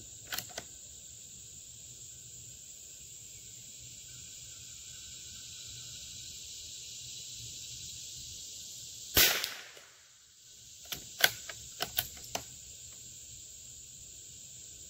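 A single .22 LR shot from a Howa M1100 bolt-action rifle about nine seconds in, followed about two seconds later by a quick run of metallic clicks as the bolt is worked. A few clicks come near the start. Crickets chirp steadily throughout.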